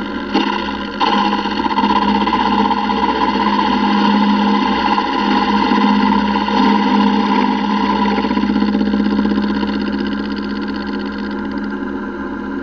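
Vertical milling machine's end mill cutting the inside opening of a T6 turbo exhaust flange: a steady machine hum under a higher ringing tone from the cut, which gets louder about a second in and eases off after about eight seconds.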